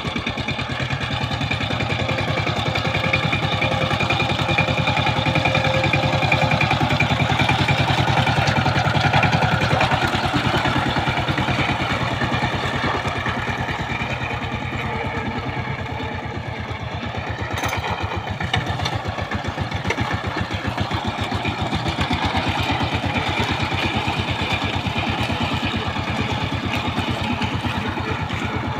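Two-wheel power tiller's single-cylinder diesel engine running steadily under load as it tills a flooded paddy field, with a fast, even firing beat. It eases off a little about halfway through, then picks up again.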